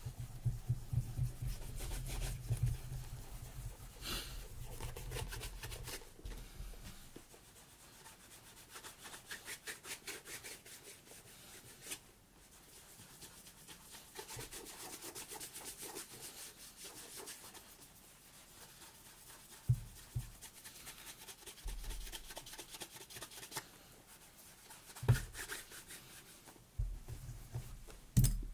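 Rapid, repeated rubbing strokes on a leather boot worked by hand. The strokes stop and start again several times, and a few dull knocks come in the last ten seconds.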